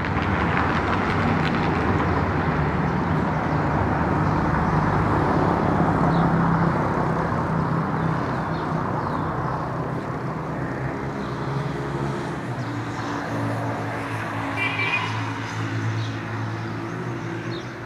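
Town street traffic: a motor vehicle engine droning over steady outdoor street noise, its hum dropping in pitch about two-thirds of the way through.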